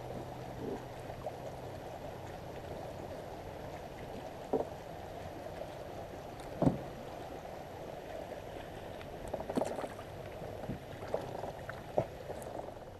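Water washing and lapping against a boat, with a few short knocks scattered through it.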